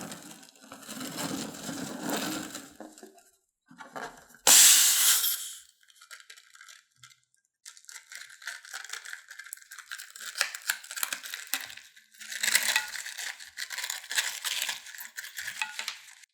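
Slime-making handling sounds: slime ingredients being worked in a container, with light clinking and rattling. A loud, brief rush of noise comes about four and a half seconds in, and a steady fine crackling runs through the second half.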